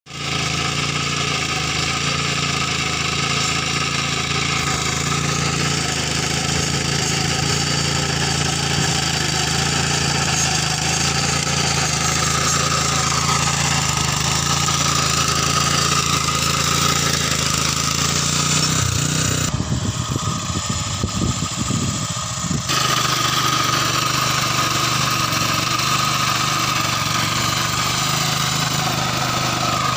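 Walk-behind power cultivator's engine running steadily under load as its rotary tines work the soil between crop rows. For about three seconds past the middle, the sound turns dull and rumbling.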